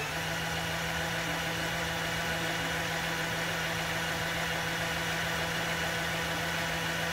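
Small electric motor and plastic gearing of a Mould King 13106 toy forklift running steadily, driving the string lift of the mast. It gives a steady whine with a low hum.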